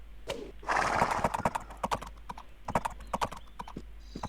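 A quick, uneven series of sharp knocks or clicks, with a denser, noisier stretch about a second in.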